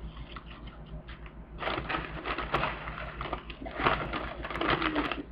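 Crisp crinkling and crackling of tortilla chips being handled and set on a plate, in bursts, the louder ones about two seconds in and again near the end.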